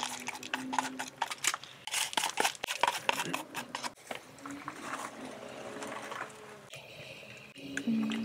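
Chopsticks and a cup clicking and scraping against a pot as soaked glutinous rice is tipped into a hotpot of broth: a quick run of small clicks for the first few seconds, then quieter.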